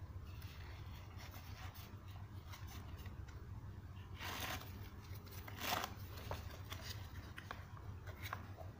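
A woven polyester belt strap rubs and scrapes as it is pulled through the slots of a hard plastic tackle box, with small plastic clicks along the way. Two louder scrapes come about halfway through.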